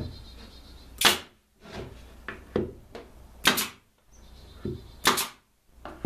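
Pneumatic nail gun firing nails into pine boards: three loud sharp shots about a second, three and a half and five seconds in, with lighter clicks in between as the tool is repositioned.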